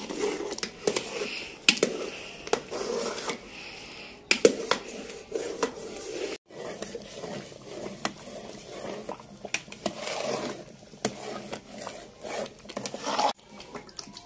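A metal ladle stirring and scraping thick, simmering gajrela in a large metal pot, with many sharp clinks and knocks against the pot.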